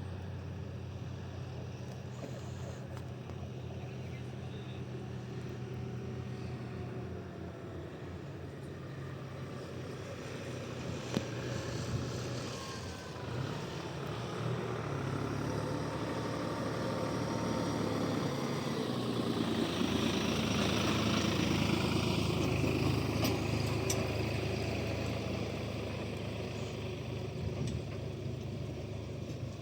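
Railway train running with a steady low engine hum; a broader rolling noise swells louder through the second half and eases off near the end.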